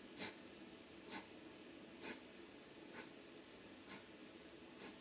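Kapalbhati breathing: short, forceful exhalations through the nose, six in a row at just under one a second, faint.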